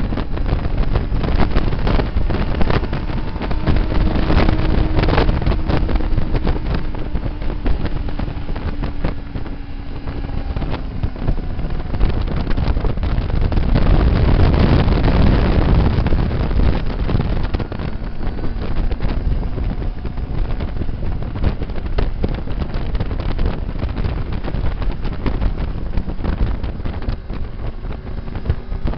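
Motorcycle at speed, heavy wind buffeting the microphone over a faint engine note whose pitch glides up and down as the rider works the throttle and gears.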